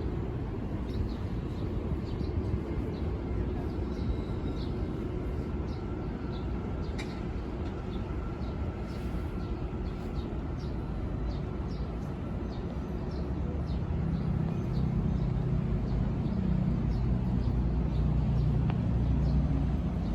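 Steady low mechanical rumble of vehicles or machinery outdoors, with faint steady tones and many short high chirps over it. The rumble grows louder about two-thirds of the way through.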